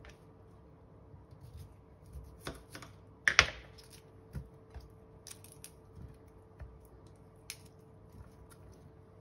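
Fresh broccoli being snapped and torn apart by hand and set into a glass baking dish: a scattered run of small crisp cracks and taps, the loudest snap about three seconds in.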